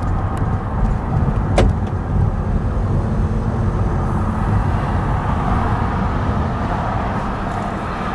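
Car on the move, its engine and tyres rumbling steadily, with one sharp knock about one and a half seconds in.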